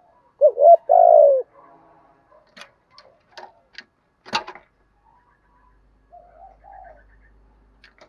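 Spotted dove cooing close up: a loud phrase of two short notes and a longer held coo about half a second in, and a fainter coo near the end. Between them come several sharp taps, the loudest about four seconds in, as the bird bumps against the camera.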